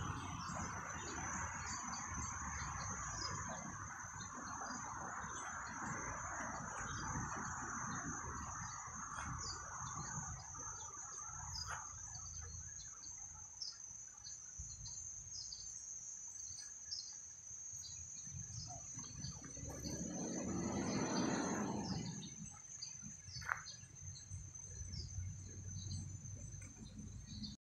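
Insects droning steadily with one high-pitched tone, over a low outdoor rumble. A broader sound swells and fades away about twenty seconds in.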